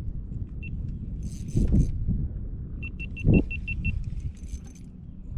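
Wind rumbling on the microphone, with two dull knocks and, about three seconds in, a brief run of about seven quick, evenly spaced metallic clicks.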